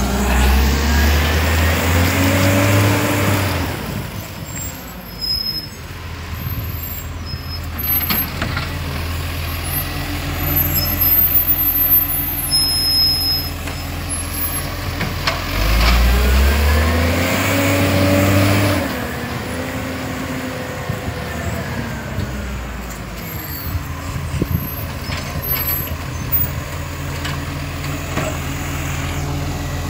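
Side-loading garbage truck's diesel engine revving up twice, near the start and again about halfway through, with the pitch rising each time, as it works its automated bin-lifting arm. Between the revs the engine runs steadily.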